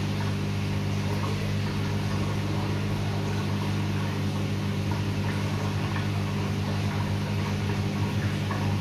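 Steady hum of a small electric motor with a whir above it, running evenly without change.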